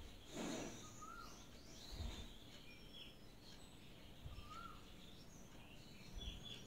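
Faint background birdsong: one bird repeats a short whistled note about every three seconds among scattered high chirps. Over it, a soft swish about half a second in and dull knocks around two and six seconds in as rice is spooned into an aluminium pot.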